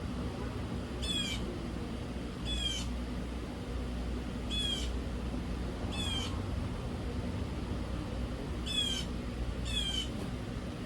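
A bird's short, high, squeaky call, repeated about six times at irregular gaps of one to two seconds, over a low steady hum.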